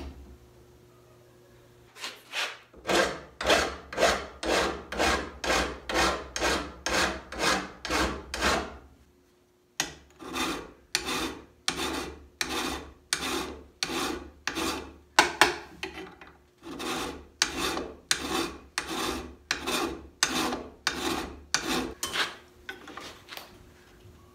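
Hand file stroking across the ends of two steel bar pieces clamped together in a vise to square them up: a steady rasping rhythm of about two strokes a second. It starts about two seconds in, breaks off briefly just before ten seconds, then resumes.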